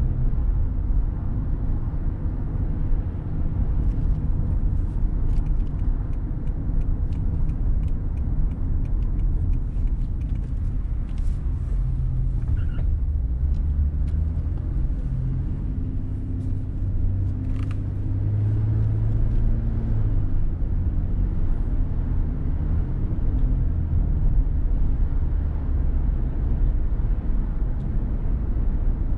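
A car being driven: a steady low rumble of engine and road noise. A low hum strengthens for a few seconds midway, and faint light clicks are scattered through the first half.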